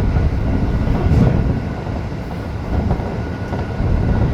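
Tokyo Metro 05 series commuter train running at speed, heard from inside the front car: a steady low rumble of wheels on rail with a faint steady tone above it. A couple of knocks come over rail joints, about a second in and again near three seconds.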